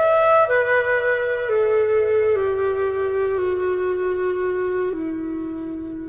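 Background music: a slow, flute-like melody stepping down note by note and settling on a long held low note near the end.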